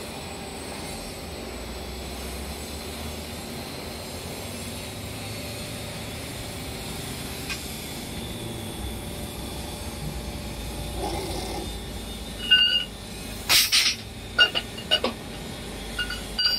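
Hydraulic rebar cold-forging machine running steadily as it presses and upsets the end of a steel reinforcing bar. In the last few seconds, a series of sharp metal clanks and clinks as the forged bar is handled in the die.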